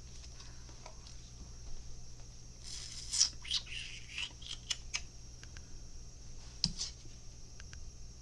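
Tarot cards being handled: quiet rustling and a scatter of light card snaps and taps, most of them about three to five seconds in and one pair near the end, over a faint steady hum.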